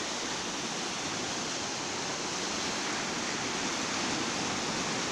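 Steady rush of a fast river current, an even hiss of running water with no pauses or swells.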